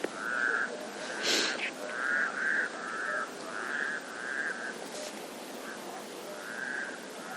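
An animal giving a series of short, rough calls, all at about the same pitch, with a pause in the middle of the run. About a second in there is one brief hiss.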